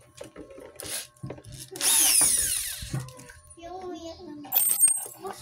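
Handheld electric drill run in a short burst of about a second, its whine falling as it lets off, then run again briefly near the end.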